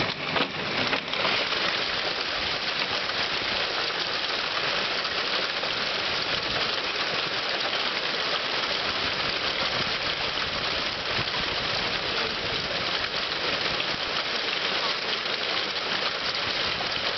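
Heavy hail falling: a dense, steady rush of hailstones hitting the street and parked cars, with a few louder knocks in the first second.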